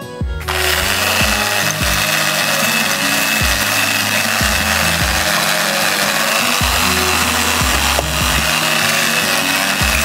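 Corded electric drill starting about half a second in and then running steadily, spinning a moka pot's water chamber in wet sand and gravel so the grit scours the rust off. Background music plays underneath.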